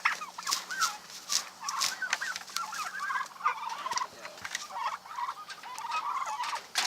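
A flock of poultry calling, with many short wavering calls overlapping one another.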